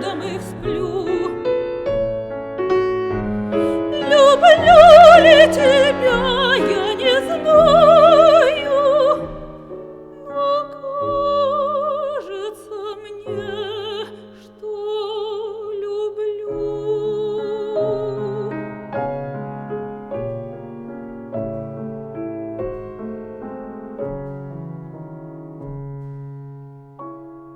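A classically trained woman's voice singing the closing phrase of a romance with wide vibrato over piano accompaniment. The voice falls away about two-thirds through, and the piano plays on alone, fading out.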